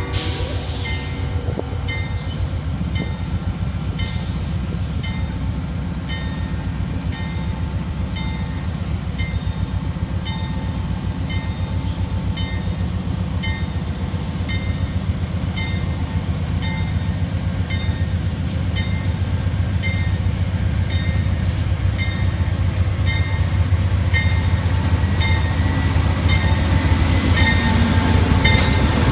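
Amtrak GE P42DC diesel locomotive rolling slowly into the station, its engine a steady low rumble that grows louder as it draws alongside near the end. A bell dings about once a second throughout.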